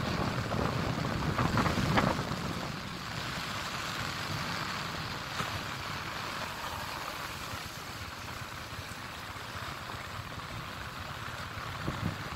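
Wind rushing over the microphone of a moving motorcycle, with a steady hiss of rain and wet road. The wind buffeting is heavier for the first two seconds, then eases to an even hiss.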